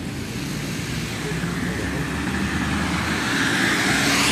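Road traffic on a snow-covered street, with tyres hissing through slush and engines rumbling; the noise swells steadily as a vehicle comes closer.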